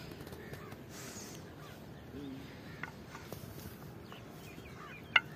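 Quiet open-field ambience with faint distant birds calling, and one sharp tap about five seconds in.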